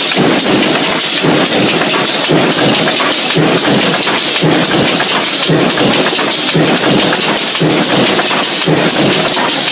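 Mechanical stamping press punching steel hinge parts from strip, striking about once a second over a loud, steady din.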